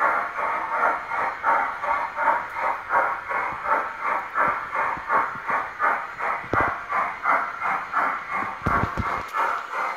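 Steam-locomotive chuffing from the sound unit of an LGB G-scale Union Pacific steam locomotive as it runs, a steady rhythm of about three chuffs a second with a hiss.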